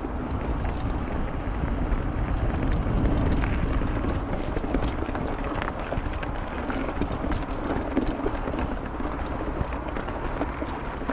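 Steady low rumble of wind buffeting the action-camera microphone, with scattered small clicks and knocks.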